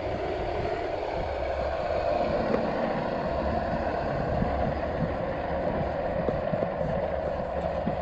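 Bobcat 773 skid-steer loader's diesel engine running steadily as the machine creeps along slowly with a load on its forks, with a few light knocks.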